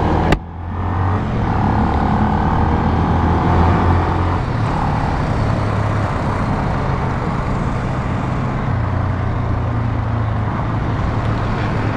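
Motorcycle engine running steadily while riding, with road and wind noise and a sharp click about half a second in.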